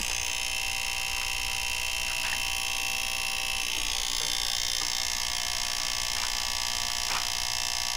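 Fisher PC-19R90 CRT television switched on with its back cover off, giving a loud, steady buzz from the area around its relay. The buzz starts suddenly at switch-on. According to the repairer it comes from a faulty capacitor near the relay.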